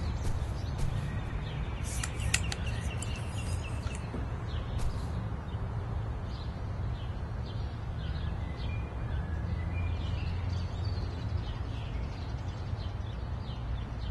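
Outdoor ambience of small birds chirping over a steady low rumble, with a string of sharp clicks and knocks in the first few seconds.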